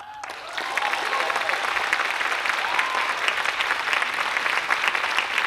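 Audience applauding, coming up quickly at the start and then holding steady.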